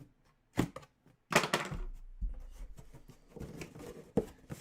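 A cardboard box being opened and handled by hand: sharp clicks and knocks, a short loud rush of noise about a second and a half in, then rustling.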